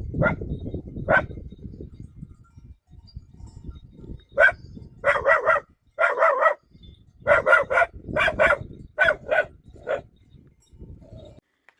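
A puppy yapping in quick runs of short, high barks, two or three at a time, with rustling underneath.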